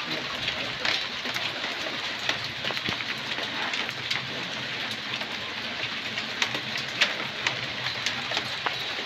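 Heavy rain pouring down steadily, a constant hiss scattered with many sharp ticks of drops striking close by.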